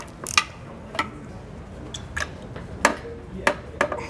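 Scattered sharp metallic clicks and clunks of a long breaker bar and socket on a BMW B58 camshaft's VANOS central bolt as the tight bolt is cracked loose.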